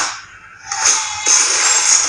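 Action film teaser soundtrack: the sound drops nearly away for a moment on a cut to black, then comes back with a sudden hit about a second in and a loud hissing rush of sound effects.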